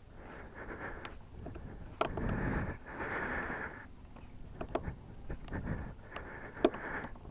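Hand work on a motorcycle air box: rustling and handling noise with several sharp clicks of a screwdriver and screws, the loudest click near the end.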